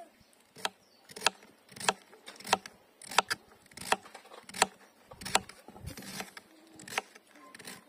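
Kitchen knife slicing a carrot into rounds on a plastic cutting board: a short, sharp knock of the blade on the board about every two-thirds of a second, in a steady rhythm.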